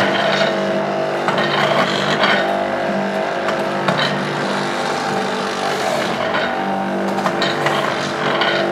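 Electric juice machine running, its motor giving a steady hum, with a few brief clicks and knocks.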